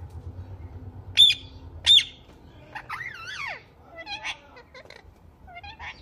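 Indian ringneck parakeets calling. Two loud, sharp screeches come about a second apart near the start, then a warbling call that wavers up and down in pitch, then softer chatter.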